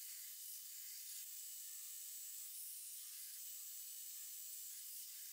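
Near silence: only a faint, steady high hiss, with no distinct sound events.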